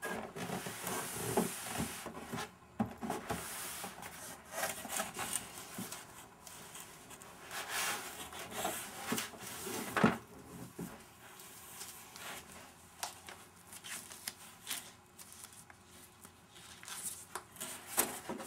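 Packaging being handled while unboxing: irregular rustling and rubbing with scattered knocks and clicks, the sharpest knock about halfway through.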